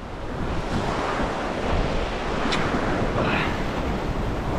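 Ocean waves washing against rocks, with wind buffeting the microphone.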